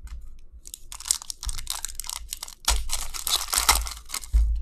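Foil trading-card pack being torn open and crinkled by hand: dense crackling of the foil wrapper in two long stretches, starting about a second in.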